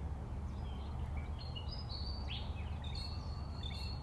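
Birds calling: a scatter of short, high whistled chirps and held notes, over a steady low outdoor rumble.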